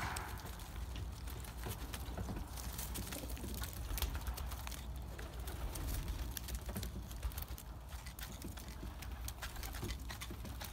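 Racing pigeons pecking seed from a wooden feeding trough: a scatter of quick, irregular clicks and taps over a low, steady background rumble.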